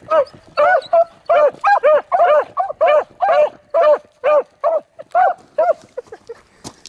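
Beagles barking in a steady run of short barks, about two a second, with more than one dog giving voice at once: hounds opening on a rabbit's track. The barks grow fainter near the end.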